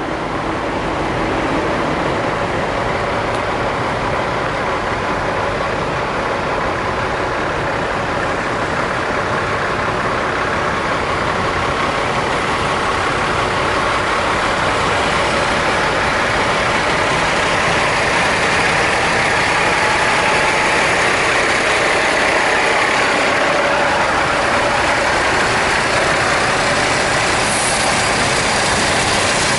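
Diesel engines of parked semi trucks idling: a steady, mixed drone that grows a little louder in the second half.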